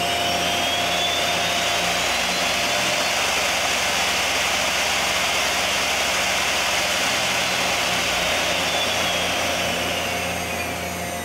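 Main spindle of a Mazak Integrex 300-IIIS CNC lathe spinning at about 4,000 rpm: a steady whine over a rush of air. The whine climbs in pitch over the first couple of seconds, holds level, then falls away near the end as the spindle slows.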